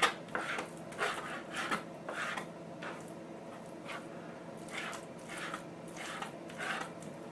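Knife slicing raw bacon against a plastic chopping board: a run of short, quiet cutting strokes, roughly two a second.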